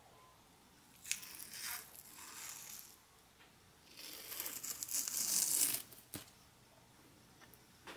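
The skin of a horse mackerel being peeled off the flesh by hand, tearing in two spells: a shorter one about a second in, and a longer, louder one from about four to six seconds.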